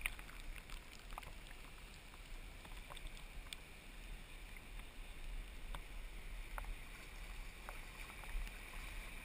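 Faint, steady wash of shallow surf foaming around a person wading, with a few faint clicks here and there.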